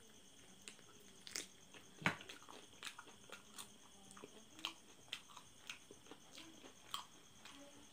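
Close-miked eating of spicy chicken feet in curry sauce: irregular soft clicks and smacks of biting, gnawing and chewing, with one sharper bite about two seconds in.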